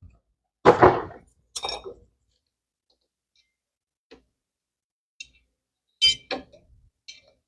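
Metal tools and parts being handled and set down: a few separate knocks and clinks with a few faint ticks between, and a long quiet stretch in the middle.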